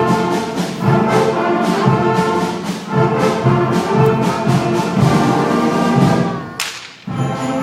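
A middle school band playing a brisk piece with brass to the fore. Near the end there is a sharp crack, the music drops away for a moment, and it starts again.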